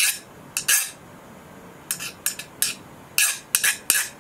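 Hardness-testing file scraped in about ten short strokes, in bunches, across the edge of a heat-treated 1084 steel blade. The file rated 50 is skating off the edge instead of biting: the steel is harder than 50 Rockwell.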